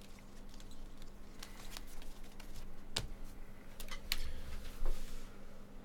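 Trading cards being handled on a table: scattered clicks and soft taps, with sharper clicks about three seconds in and again about a second later.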